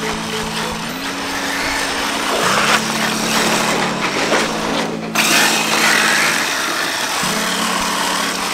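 Whine and tyre noise from a 1/7-scale 8S brushless electric RC car running on asphalt, heard with a background music track of held low notes that change pitch every second or two. The sound breaks off and picks up again about five seconds in.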